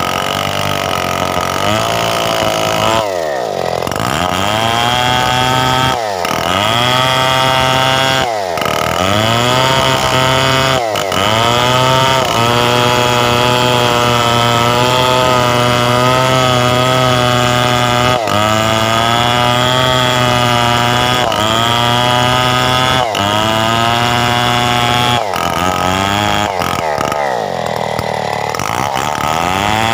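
Stihl 070 two-stroke chainsaw running at high revs while sawing coconut wood into beams; its engine note drops sharply and climbs back every few seconds.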